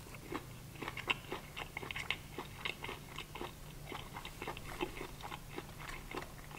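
A person chewing a crispy breaded fried shrimp, with many small, irregular crunches. A steady low hum runs underneath.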